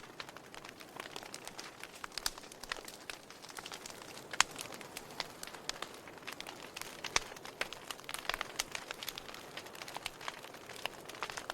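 Wood fire burning in a fireplace, crackling with irregular sharp pops over a soft steady hiss.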